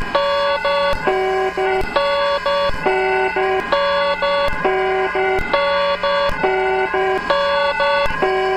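Electronic emergency-alert (EAS) alarm tone: short paired beeps stepping between a few pitches in a pattern that repeats about every two seconds, over a faint steady low hum.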